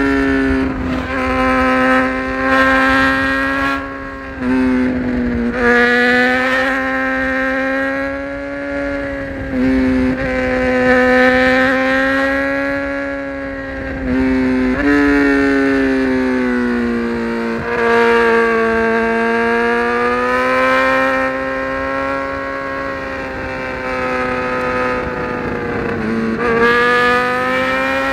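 2018 BMW S1000RR's inline-four engine pulling hard at highway speed. Its high note rises and falls with the throttle and is cut briefly about six times at gear changes.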